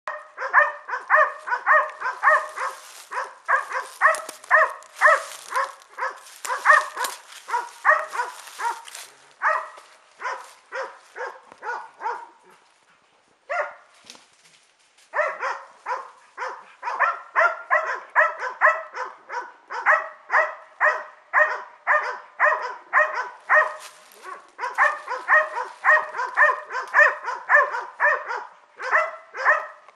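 Segugio Maremmano hounds barking steadily and fast, about two to three barks a second, with a short lull near the middle broken by a single bark. This is baying at a standstill (abbaio a fermo), the sign that the hounds are holding game at bay.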